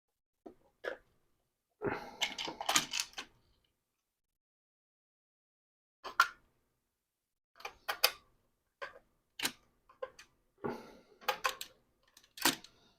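Clicks and knocks of a plastic game controller and its small parts being handled and opened on a workbench: a quick flurry of clicks about two seconds in, then single clicks about a second apart through the second half.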